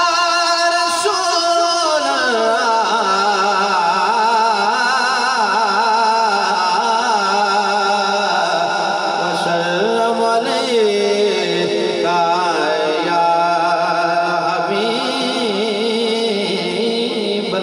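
Male voice singing a drawn-out salawat (durood) in long held notes that waver and twist in pitch.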